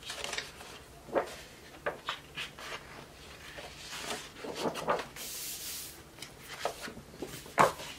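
Pages of a large glossy photobook being flipped and handled: a series of short paper swishes and flaps, with a longer sliding hiss about five seconds in and a sharper thump near the end, the loudest sound.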